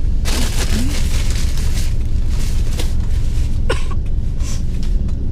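Car cabin rumble of engine and road noise while riding in traffic, with a louder hissing burst lasting under two seconds near the start and a sharp click a little past halfway.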